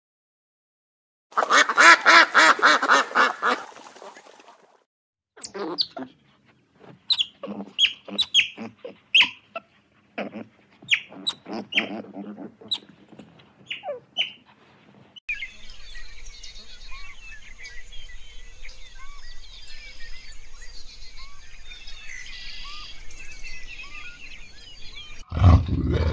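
A ruddy shelduck gives a loud burst of nasal honking calls lasting about two seconds. It is followed by otters chirping in a series of short, high squeaks for nearly ten seconds, then a steady background with many faint small chirps. A loud low sound starts just before the end.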